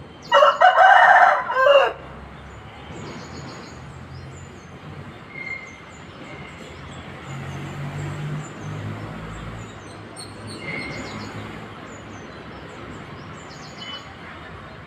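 A rooster crows once, loudly, for about a second and a half near the start. Faint high chirps of small birds or the squirrel follow over a low background hum.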